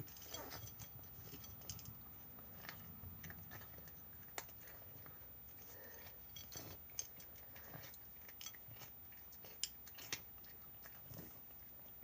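A cat eating: faint, scattered crunches and clicks of chewing, with quiet gaps between them.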